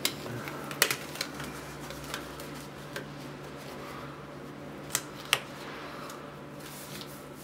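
A disposable glove being pulled onto a hand: a few sharp snaps and clicks with light rustling, the loudest about a second in and twice around five seconds in, over a steady low hum.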